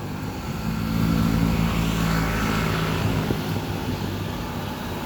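Airliner engines running steadily, a continuous rushing hum with low droning tones that fade about two-thirds of the way in.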